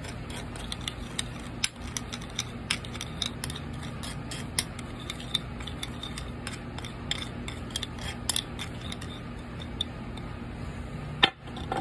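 Metal spoon stirring salt, pepper and lemon juice on a porcelain saucer: quick, irregular clinks and scrapes of metal on ceramic, with one sharper click near the end. A steady low hum runs underneath.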